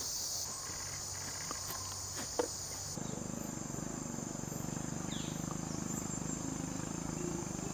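Steady, high-pitched chorus of insects. The background changes abruptly about half a second and three seconds in, with a couple of faint clicks in between.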